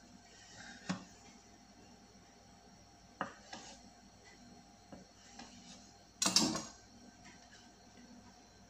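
Quiet handling noises: a light knock about a second in, another about three seconds in, and one louder clatter, like a dish or utensil set down, about six seconds in.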